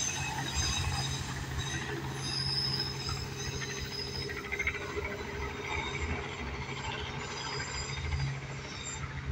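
Freight train cars rolling past, the wheels squealing in several thin, steady high tones over a low, steady rumbling hum.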